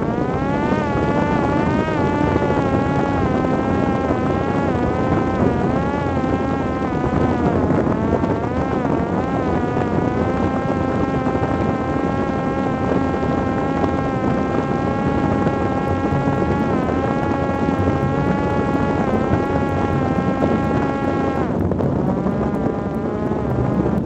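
Parrot Disco fixed-wing drone's electric motor and pusher propeller whining in flight over wind rushing past the microphone. The whine rises as the motor spins up at the start, wavers slightly in pitch, and cuts off near the end, leaving only the wind as the motor stops.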